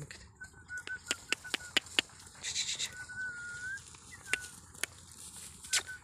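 Beetal goat kids cropping grass close by: sharp, irregular tearing clicks as they bite and pull the blades. Thin, short whistled bird calls repeat in the background, one held longer about three seconds in.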